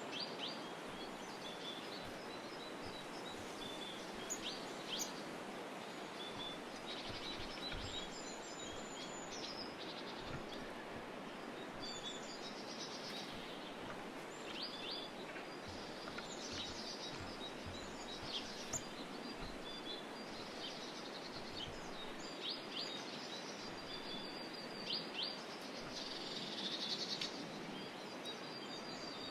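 Small songbirds chirping and calling, short high calls scattered throughout over a steady background hiss, with a few low thuds.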